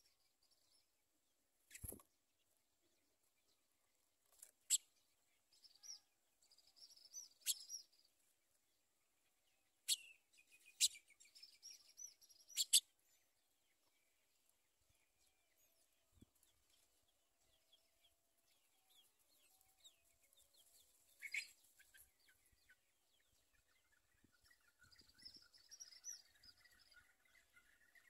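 Faint house sparrow chirps and twittering at the nest: several short, sharp chirps and bursts of high twittering in the first half, and a run of lower, quick repeated chips near the end.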